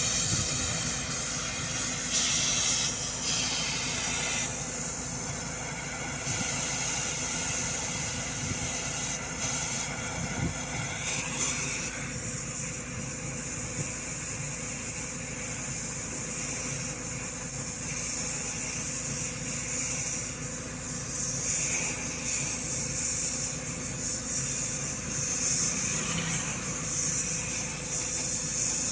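Gas cutting torch hissing steadily on red and blue oxy-fuel hoses while it cuts a steel plate, over a steady low machine hum.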